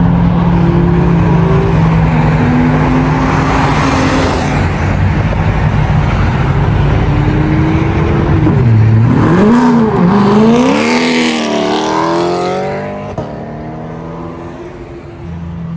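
Car engines rumbling at low speed, then one car revs and accelerates hard. Its engine note dips and swoops about eight seconds in, then climbs steadily as it pulls away, and fades near the end.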